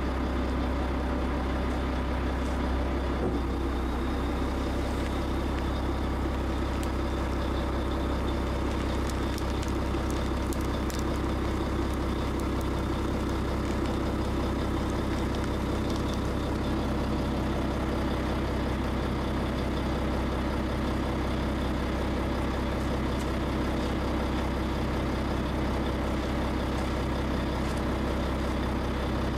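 Heavy vehicle's diesel engine running steadily at low speed, a deep even drone, with a few faint sharp clicks about ten seconds in.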